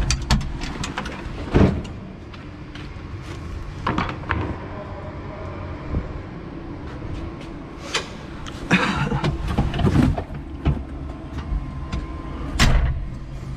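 A 5-ton electric forklift at work: a steady low hum of its motors, broken by a series of sharp knocks and clunks, a cluster in the first two seconds, more around the middle, and a loud one near the end.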